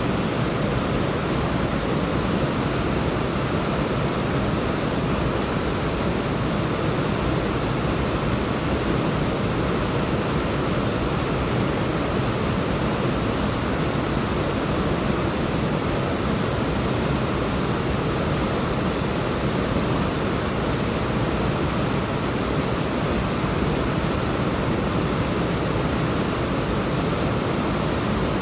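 Waterfall: falling and running water making a steady, unbroken rush, strongest in the low and middle range.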